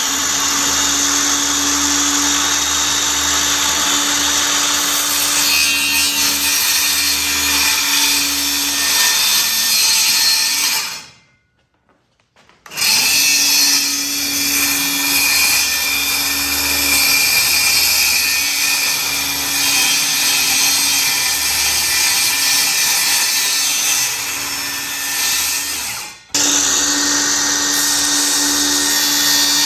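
A power tool runs under load in long, steady stretches. It stops for about a second and a half about eleven seconds in, then dips briefly again near the end.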